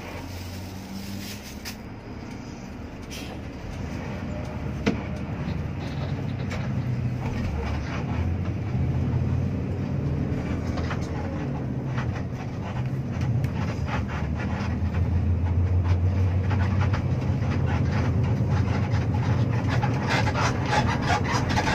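Intercity coach's diesel engine heard from the driver's cabin as the coach pulls away and gathers speed, its hum growing louder with a short dip midway. A single sharp click about five seconds in.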